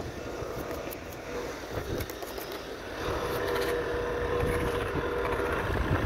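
Snow being scraped and wiped off a car's headlight, bumper and number plate by hand, with scattered scuffs and clicks, over a car engine running steadily; the engine tone becomes stronger about three seconds in.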